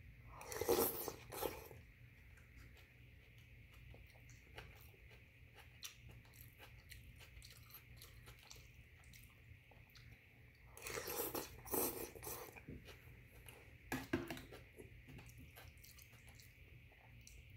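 A person eating rice porridge with chicken and glass noodles from a metal pot with a spoon: close chewing, with three louder noisy slurps as spoonfuls are taken in and small clicks between.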